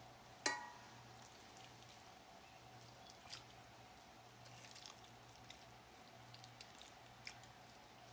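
Near silence with a faint steady hum. About half a second in, a sharp metal tap rings briefly against the cast iron dutch oven, and faint soft wet clicks follow from a utensil working through slow-cooked pork shoulder and beans.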